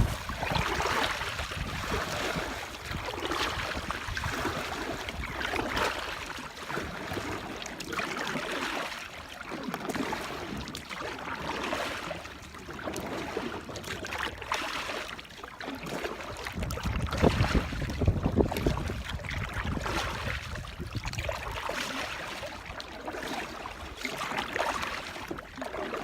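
Wind gusting over the microphone while water splashes against the hull of a small fishing boat in uneven swells, with a heavy gust about 17 seconds in.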